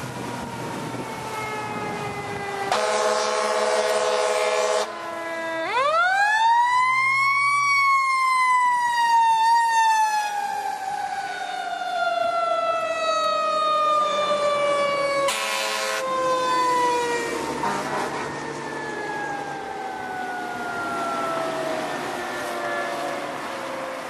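Fire truck siren winding up to a high wail and then slowly winding down, with air horn blasts: a long one of about two seconds early on and a short one about halfway through.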